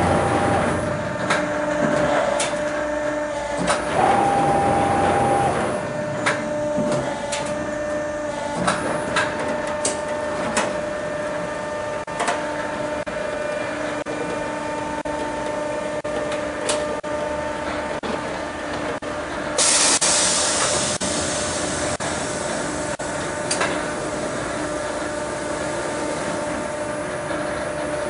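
Sheet-metal duct production line running: a steady machine hum whose tones switch on and off, with scattered metallic knocks and clanks, and a loud burst of hiss about two-thirds through.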